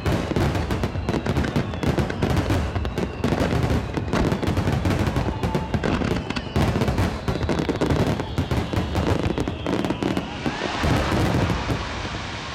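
Rapid barrage of large aerial firework shells bursting, the bangs overlapping several times a second. Near the end the bangs thin out into a steady hiss.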